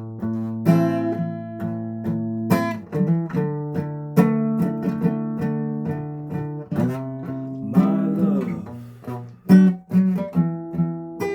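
Guitar chords strummed with a pick and left to ring, a series of strums at an uneven pace.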